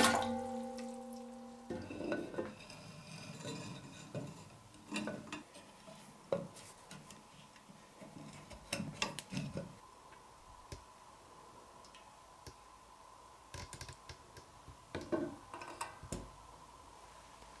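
The last of water filling a glass cylinder dies away at the start. Then come scattered light clicks, taps and clinks as wire is twisted through the hanging hole of a rusty steel cleaver and the cleaver is handled, with clusters about five, nine and fifteen seconds in.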